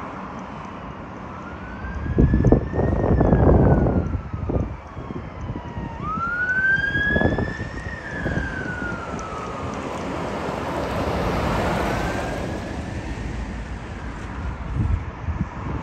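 Emergency vehicle siren on a slow wail, its pitch rising and falling about every five seconds. Gusts of wind buffet the microphone.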